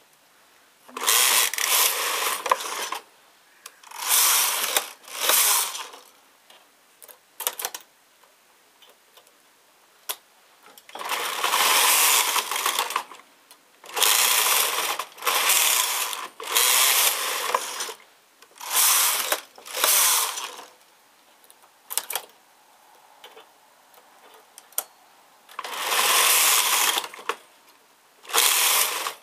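A home knitting machine's carriage pushed back and forth across the needle bed, each pass a rattling, clicking sweep of one to two seconds, with pauses between the passes.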